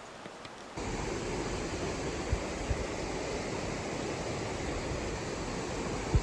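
Steady rush of flowing stream water that starts abruptly about a second in, with a few short low thuds.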